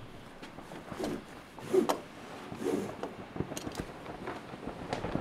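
Climbing gear being handled: irregular clicks and rustles of carabiners, rope and clothing, with the loudest clatter a little under two seconds in.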